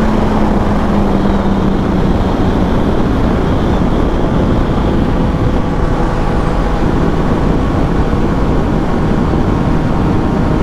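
Heavy wind rush on the microphone of a Yamaha FZ-09 motorcycle at road speed, over the bike's three-cylinder engine, whose tone falls a little over the first few seconds.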